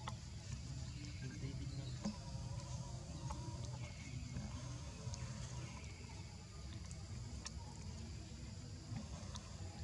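Outdoor tree-canopy ambience: insects making a steady high hum over a low rumble, with a few faint clicks.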